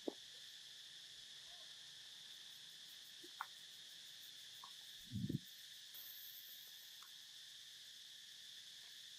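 Steady insect chorus chirring faintly, with a few small clicks and a short low thump about five seconds in.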